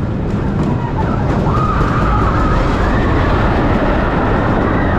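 Wooden scenic railway coaster train running on its wooden track into a tunnel: a heavy, steady rumble of the wheels, a little louder about a second in. A long, wavering high-pitched wail rises over the rumble about a second and a half in and carries on.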